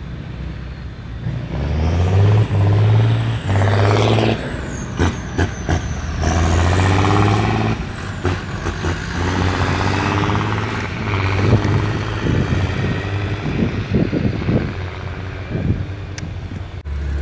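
Diesel tractor engines running, their note stepping up and down as they rev, with a few short sharp knocks and hisses.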